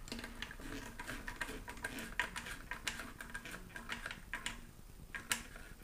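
Light, irregular clicking of a hand tool tightening the screw at the bottom of a motorcycle headlight's retainer ring.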